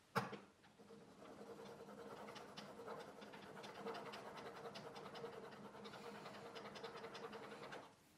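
Plane iron in a honing guide rubbed back and forth on an MDF strop charged with 3.5 micron diamond paste: a fast run of faint, soft scraping strokes, polishing the edge toward a mirror finish. A short knock comes right at the start.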